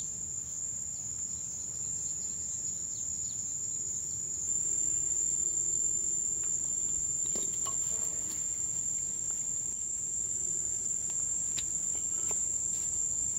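Insects calling in one steady high-pitched drone that grows a little louder about four seconds in, with a few faint taps.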